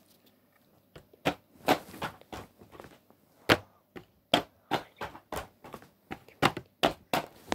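Handling noise: about a dozen irregular sharp clicks and knocks with a few short rustles, from boxed wooden toy trains and their card-and-plastic packaging being picked up and moved.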